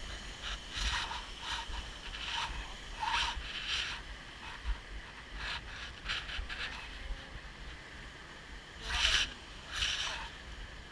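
Irregular scuffs and rustles of a hiker's footsteps and clothing as they walk down a wet, slippery path, over a faint steady hiss and a low rumble on the microphone.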